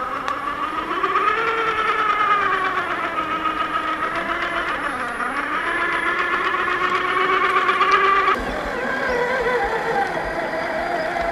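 Whine of an RC scale crawler's electric motor and geared transmission, its pitch rising and falling with the throttle as it crawls over rock. About eight seconds in it changes abruptly to another crawler's whine at a different pitch.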